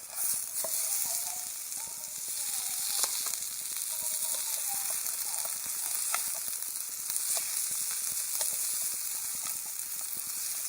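Newspaper burning as campfire fuel in a fire pit: a steady hiss of flame with sharp, irregular crackles and pops.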